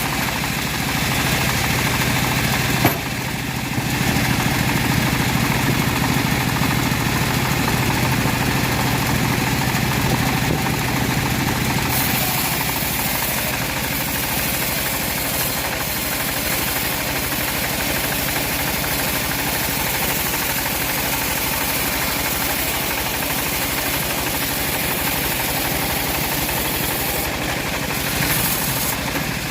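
Band sawmill running steadily while sawing teak, a continuous machine drone that dips briefly about three seconds in and shifts tone around twelve seconds in.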